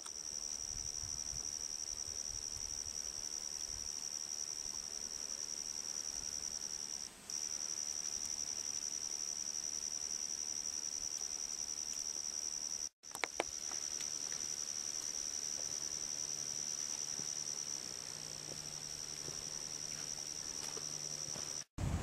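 Insects singing: one steady, high-pitched trill. It dips briefly about seven seconds in and cuts out for a moment about thirteen seconds in and again near the end.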